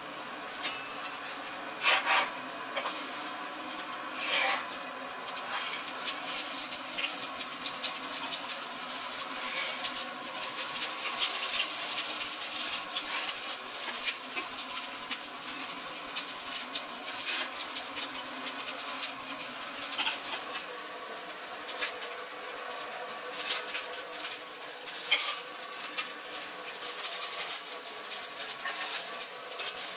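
Shrimp and chive pancakes frying in oil in a cast-iron skillet: a steady sizzle and crackle of hot oil, with louder spatters now and then.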